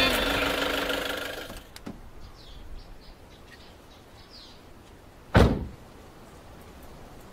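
A high-roof passenger van's driver door slams shut with a single loud thud about five seconds in. Before it, music fades out in the first couple of seconds and faint bird chirps can be heard.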